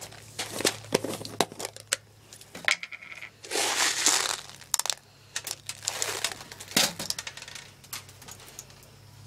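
Scattered sharp plastic clicks and rustling from handling a Crosman P30T spring airsoft pistol and its magazine while readying it to shoot.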